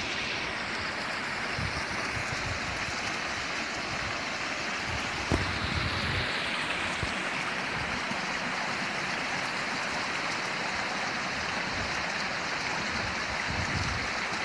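Small stream tumbling over rocks in a little cascade: a steady rushing of water, with one brief knock about five seconds in.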